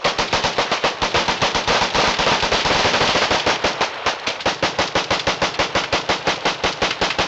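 Rapid gunfire: a long, unbroken string of shots several per second, densest in the middle and spacing out slightly toward the end.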